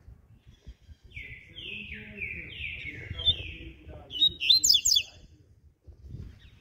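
Double-collared seedeater (coleiro) singing one song phrase: a run of about five down-slurred whistled notes, then a quicker, higher and louder flurry of notes that ends about five seconds in.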